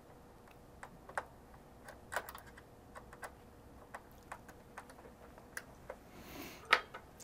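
Small Phillips screw being driven into the plastic mounting bracket of an alarm console with a hand screwdriver: faint, irregular clicks and ticks. Near the end there is a brief rustle and a louder click as the console is handled.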